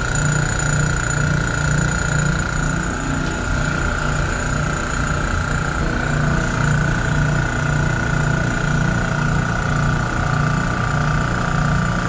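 Portable refrigerant recovery machine running, its compressor and fan giving a steady hum with a low throb that pulses a few times a second and a steady whine above it, as it pumps R404A refrigerant from one cylinder into another.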